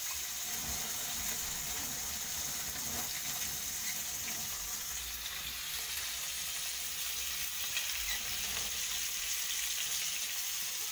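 Oil sizzling steadily in a small frying pan on a gas stove as food fries.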